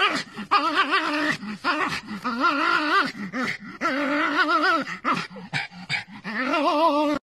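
A dog whining at rolled-up hedgehogs in repeated wavering, warbling cries, with short sharp snuffs between them, stopping abruptly near the end.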